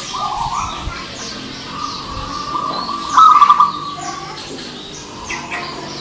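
Zebra dove (perkutut) singing: softer cooing notes lead into one loud, rapidly pulsed, trilling coo phrase about three seconds in. Brief high-pitched chirps sound faintly in the background.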